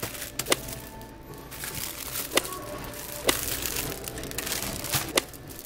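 Plastic-wrapped pastries handled and set on a plastic bakery tray: a few sharp clicks and crinkles at irregular intervals, over faint background music.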